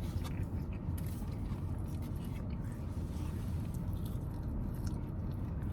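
Someone chewing and biting food, small mouth and crunch noises over a steady low rumble.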